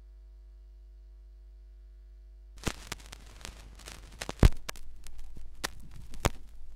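A steady low hum, then about two and a half seconds in a turntable stylus sets down in the lead-in groove of a vinyl LP: surface crackle with several sharp pops, the loudest about four and a half seconds in.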